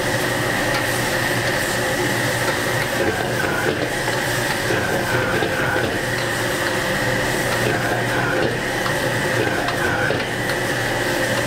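Steady rushing noise of a high-flame gas wok burner, with food sizzling and a metal ladle scraping and stirring it around the wok.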